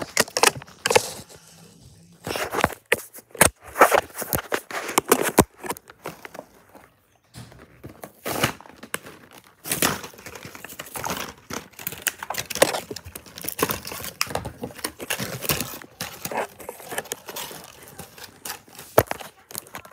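Clear plastic blister packaging and cardboard of Roblox toy figure packs crinkling, crackling and tearing as they are handled and opened, in irregular spurts with short pauses.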